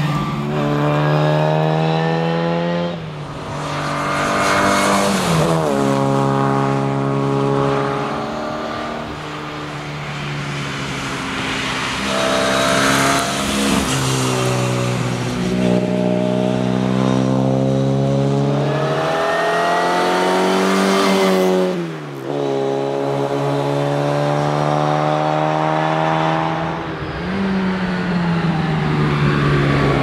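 Austin A30 rally car's small A-series four-cylinder engine revving hard as it drives a tarmac stage. Its pitch climbs and then drops sharply again and again as it shifts up through the gears.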